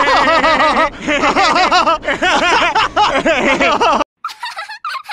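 Cartoon laughter from a man and a small child laughing together in quick repeated bursts, cutting off suddenly about four seconds in; quieter, choppy snickering follows.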